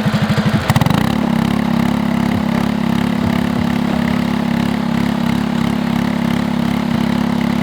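Small gasoline engine with a racing exhaust, belt-driving a pitching machine's throwing wheel, revs up from idle about a second in and then holds a steady high speed.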